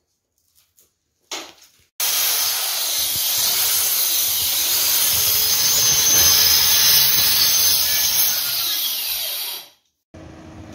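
A power tool cutting a chase for new wiring into a plaster wall. It runs loud and steady from about two seconds in, after a brief blip, and stops abruptly near the end.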